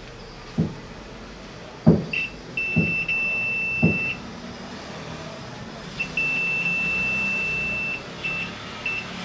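Multimeter continuity beeper sounding as the test probes touch circuit points: a short beep, a long steady high beep of about a second and a half, another of about two seconds, then a few brief beeps near the end, each signalling a low-resistance connection between the probes. Four dull knocks come in the first four seconds.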